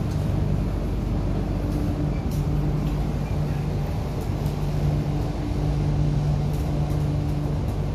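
Inside an MTR Kwun Tong Line Q-Train carriage under way: a steady low rumble of the train, with a humming tone that cuts out and comes back several times.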